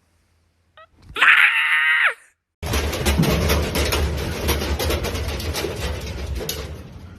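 A loud, high scream-like cry lasting about a second, falling in pitch at its end, followed about half a second later by several seconds of loud crackling, rustling noise over a low rumble that slowly fades.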